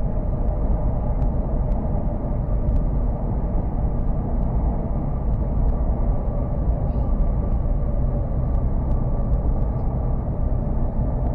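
Hokuriku Shinkansen train running at speed, heard from inside the passenger cabin: a steady low rumble with a faint hum over it and scattered light ticks.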